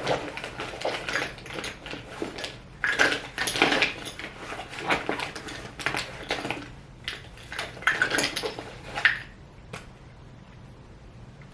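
Small hard items clattering and knocking together as they are handled and rummaged through, a dense run of clicks and rattles that stops about nine seconds in.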